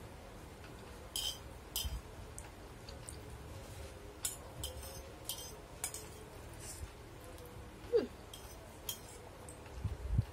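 A metal spoon clinking and scraping against a ceramic plate as the last soup broth is sipped off it, in a dozen or so brief separate sounds spread through. A short falling tone about eight seconds in, and a few soft knocks near the end.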